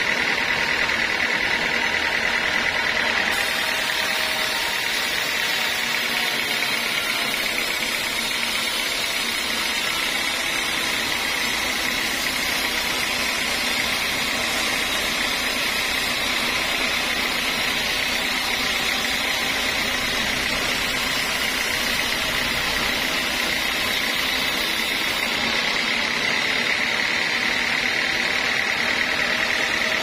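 Log band sawmill running, its blade sawing through a teak log: a steady machine noise with a high hum. The hiss grows brighter about three seconds in and eases near the end.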